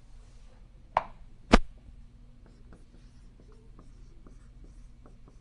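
Writing on a board: two sharp taps about a second in, followed by a run of light, quick strokes and ticks.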